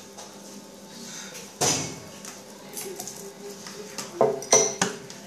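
Kitchen clatter: a sharp knock about one and a half seconds in, then two short knocks with a little ringing near the end, as of a cupboard being worked and dishes handled.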